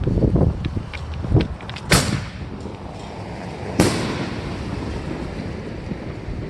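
Canister shell fireworks: a few small crackles, then two sharp bangs about two seconds apart.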